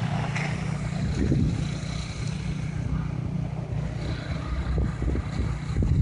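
Steady low rumble of city street traffic, cars moving on a snow-covered road.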